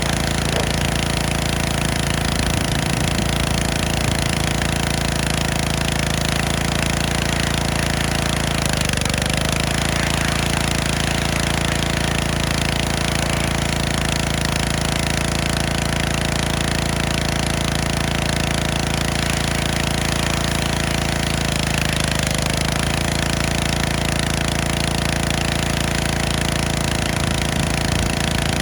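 Gas-engine pressure washer running steadily with a hiss of spray, the engine pitch sagging briefly and recovering three times, about a third of the way in, three quarters in, and at the end.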